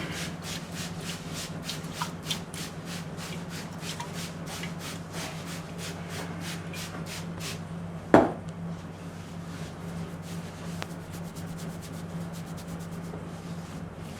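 Barber's hands striking rhythmically during an Indian head massage, about three light strokes a second, quickening in the last few seconds. One much louder sharp smack comes a little past halfway.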